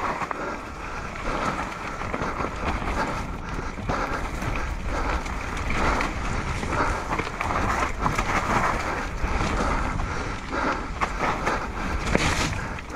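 Mountain bike descending a rooty dirt trail: tyres rolling over dirt and roots, with frequent sharp knocks and rattles from the bike, a louder burst of them near the end, over steady wind rumble on the microphone.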